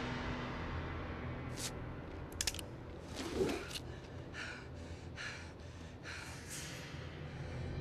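A woman breathing hard in short, quick breaths, with a sharp gasp a few seconds in, as if out of breath and startled.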